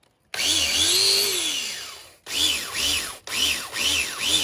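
Electric drill spinning a wire brush against a motorcycle cylinder head's combustion chamber to scrub it clean. It runs in bursts, the pitch rising and falling with each squeeze of the trigger: one long burst, then several short ones with brief gaps between.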